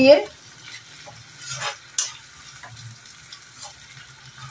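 Metal spatula stirring and scraping a frying masala paste around an iron kadhai, over a faint sizzle; a few scrapes stand out, with a sharp click about two seconds in.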